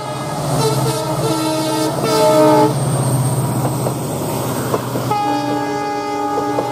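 Indian Railways diesel locomotive sounding its horn in several blasts that change pitch over the heavy run of its engine as it passes close by, then the coaches' wheels clicking over the rail joints as they roll past, with a steady tone from about five seconds in.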